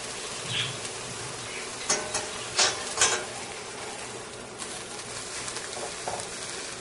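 Flourless apple pancake sizzling steadily in a stainless steel frying pan, with a few sharp scrapes and clinks of a metal spatula against the pan about two to three seconds in as it is worked under the pancake.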